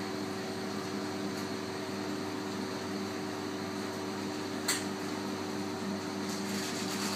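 Steady electric hum of a chocolate tempering machine running, with one short sharp click about two-thirds of the way through.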